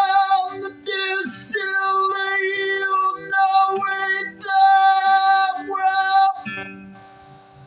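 A man singing held notes while playing an acoustic guitar. The voice stops about six and a half seconds in, and the last chord rings on and fades.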